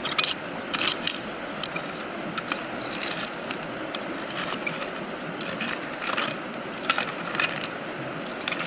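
Irregular clicks and rattles of hard objects being handled, over a faint steady hiss.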